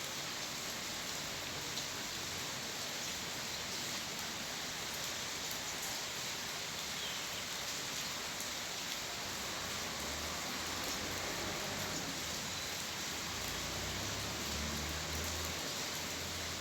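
Steady rain falling without thunder, an even hiss with fine pattering drops. A faint low rumble comes in for a few seconds in the second half.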